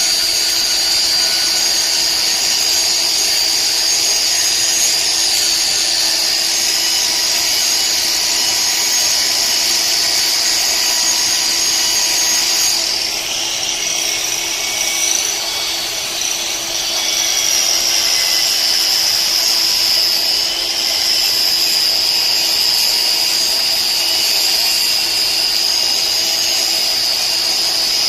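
A power tool running with a steady high-pitched whine. Partway through it dips and shifts in pitch for a few seconds, then settles back.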